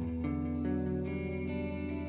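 Live blues-rock band playing an instrumental passage: electric guitars over bass guitar and keyboards, holding steady chords.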